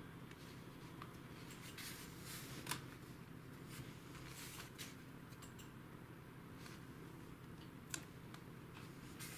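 Faint, scattered clicks and scrapes of metal tweezers picking small rubber screen bumpers off a laptop's plastic display bezel, the clearest about a third of the way in and again near the end, over a steady low hum.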